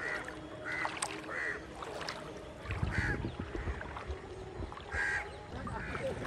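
Floodwater swishing and sloshing around the legs of someone wading, with about six short bird calls scattered through it.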